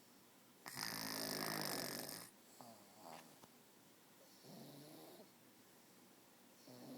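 Snoring: one loud rasping breath about a second in, followed by quieter, softer breaths.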